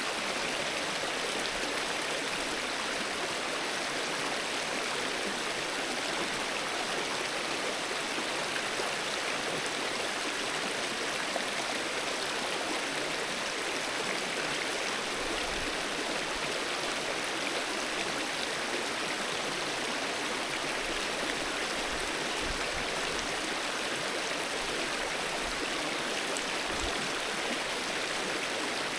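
Mountain river water running steadily over rocks, an even rushing splash.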